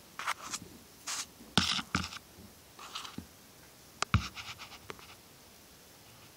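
A flashlight being handled against python eggs and granular incubation substrate: a string of short scratching and rustling sounds, with a sharp knock about four seconds in.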